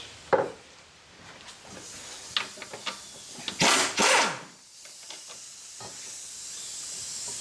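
Light metallic clicks and clinks of hand tools working on the engine, with two short hissing bursts about three and a half and four seconds in.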